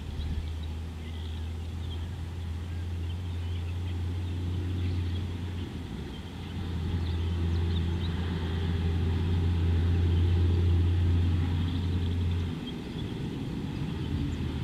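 A steady low mechanical hum that starts with a click, dips briefly about six seconds in and cuts off suddenly near the end, with faint bird chirps above it.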